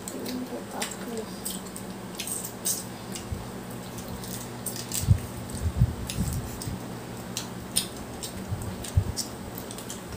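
Eating sounds of crab and shrimp from a seafood boil: frequent wet smacks and sucking clicks, with a few low thumps between about five and nine seconds in.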